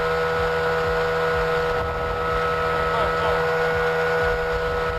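Outboard motor of a small fishing boat running steadily at speed, a constant whine, with wind buffeting the microphone.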